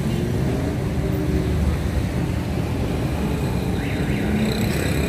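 Steady low background rumble of road traffic.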